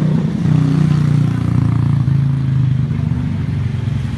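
A motorcycle engine running at a steady low pitch that shifts only slightly.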